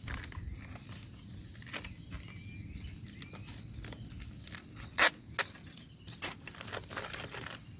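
Irregular taps and clicks, with two sharp knocks about five seconds in, over a faint steady high-pitched hum.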